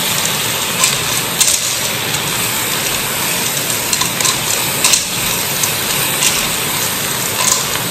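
Raw penne being stirred with a wooden spoon in a pot over high heat, frying with sausage and onion: a steady sizzle with scattered sharp clicks of dry pasta and spoon against the pot.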